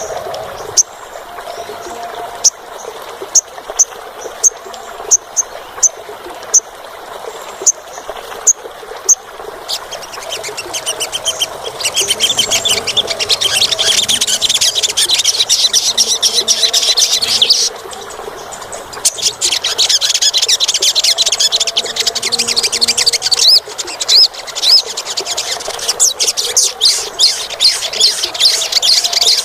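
Olive-backed sunbird singing: a string of sharp, high single chips, then fast, high-pitched twittering trills from about ten seconds in, breaking off briefly and starting again.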